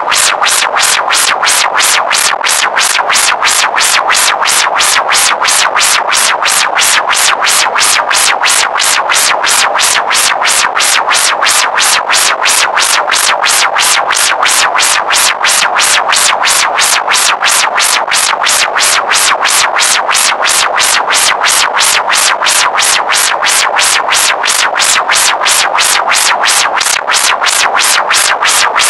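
Electronic synthesizer music with a fast, even pulse repeating throughout.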